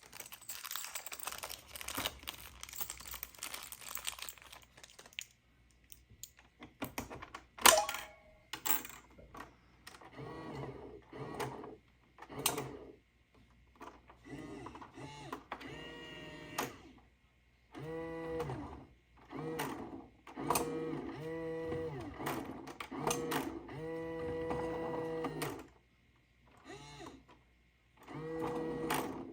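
Toy electronic claw crane machine working: a whirring motor and clicks, then the machine's electronic tune of short beeping notes, stopping and starting several times.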